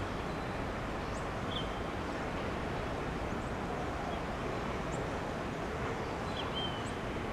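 Steady outdoor background noise with a few short, high bird chirps scattered through it.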